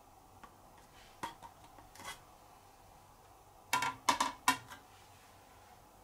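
Hard plastic clicks and clacks of an air conditioner outdoor unit's propeller fan being handled: a few light taps in the first two seconds, then a quick cluster of sharper clacks about four seconds in.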